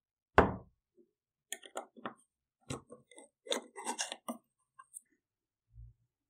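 A loud thump on a wooden table, then a run of short metallic clicks and scrapes as the lid of a paint tin is pried off with a metal tool, and a dull low thud near the end.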